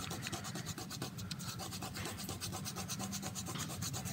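Fast, steady back-and-forth rubbing over paper on a desktop, burnishing the back of a pencil drawing to transfer its graphite onto the sheet beneath.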